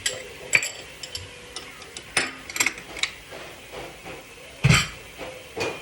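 Kitchen clatter: a string of sharp knocks and clinks from items being handled, a few ringing briefly, with one heavier thump near the end.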